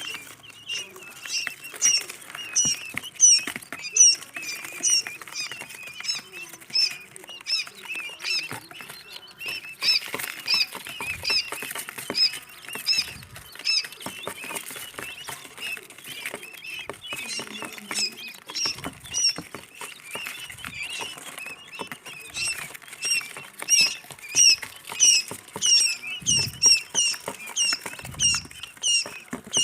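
Quail chicks peeping, a stream of short high chirps several a second, busiest near the start and again in the last few seconds, with faint scratching and patter underneath.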